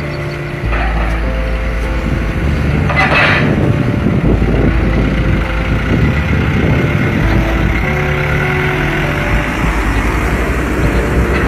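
Diesel engine of a loaded Hino dump truck carrying oil-palm fruit, running under load as it drives off a barge ramp, with a short hiss about three seconds in. Music with long held notes plays underneath.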